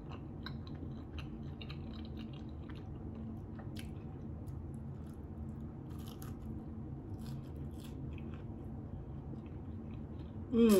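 A person biting into and chewing a chicken and cheese quesadilla, with soft wet mouth clicks and smacks scattered through, over a steady low hum.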